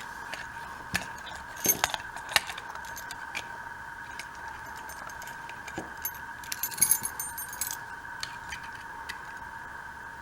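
Small tools clicking and scraping against the plastic casing and parts of a small camera being pried apart, scattered single clicks with a quick run of them about seven seconds in. A steady high whine sits underneath.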